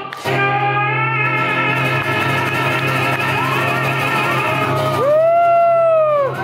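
Live music: a man sings long wavering notes over an acoustic guitar that keeps a steady low drone. Near the end come sliding notes that rise and then fall.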